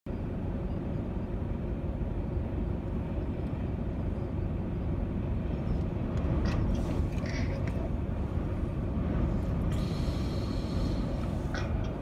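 Gale-force wind buffeting the microphone: a loud, steady low rumble with no let-up. A few brief higher-pitched sounds cut through it in the second half.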